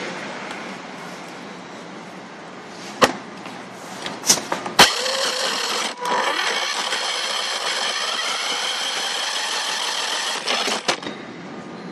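Small RC car's electric drive motor running with a steady high whine for about six seconds, starting after a few sharp clicks and knocks and cutting off near the end with a couple more clicks.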